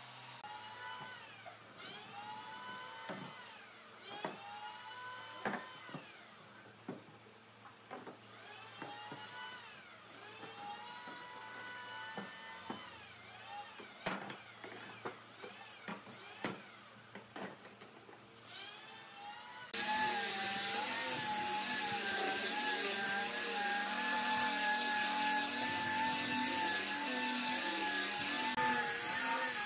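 Steel pipe clamps being loosened and lifted off a glued board: a string of short rising-and-falling metallic squeals and sharp knocks. About two-thirds in, an angle grinder with a sanding disc starts abruptly, running steadily with a slightly wavering whine as it sands the wooden panel.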